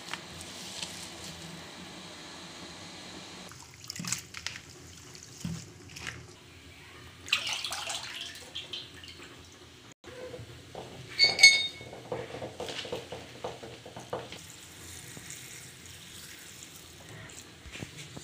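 Kabhra (Ficus lacor) shoots being rinsed in a plastic colander: water running and splashing as the shoots are handled, in uneven surges. One loud, short ringing clink a little past the middle.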